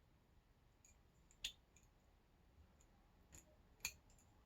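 A few faint, sharp little clicks, the clearest about a second and a half in and two more close together near the end, as the small metal pins of a disassembled lock cylinder are handled.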